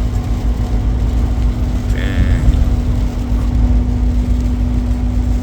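Steady engine and road rumble heard inside a moving truck's cab, with a constant hum throughout. A short higher-pitched sound comes about two seconds in.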